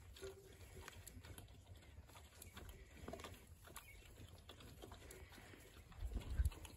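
A sow and her piglets eating feed from a tub and pans: irregular crunching and clicking of chewing. A brief low rumble about six seconds in is the loudest sound.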